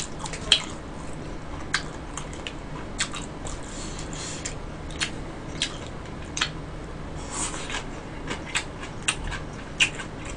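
Close-miked eating: chewing stir-fried blood sausage and pork intestines, with sharp, irregular clicks of mouth and chopsticks, about a dozen over the stretch.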